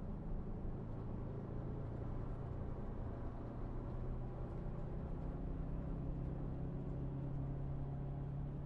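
Steady low rumble of a moving vehicle's interior, with a hum that shifts slightly in pitch about three seconds in.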